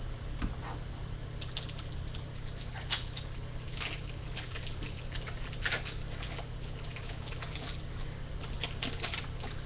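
Foil wrapper of a Bowman baseball card pack crinkling and crackling as it is handled and torn open, with scattered sharp crackles, the loudest about three, four and six seconds in.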